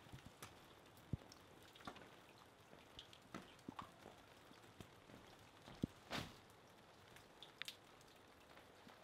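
Light rain: scattered drops tapping at irregular intervals over a near-quiet background, with one slightly fuller tap about six seconds in.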